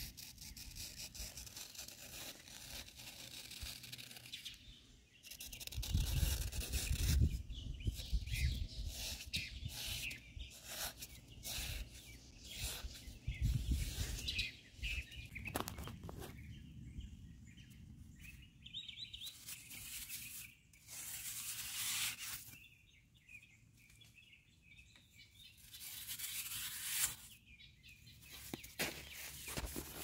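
A thin metal blade scraping and slicing through damp packed sand, in irregular gritty strokes as crumbs fall away. There are bouts of low rumble a few seconds in and again near the middle.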